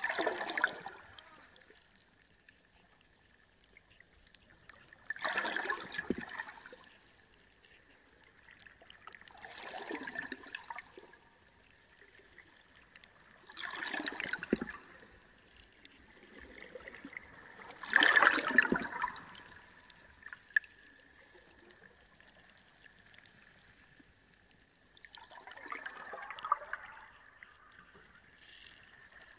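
Reef aquarium water splashing and trickling in surges that come about every four seconds, each lasting a second or so, over a faint steady whine.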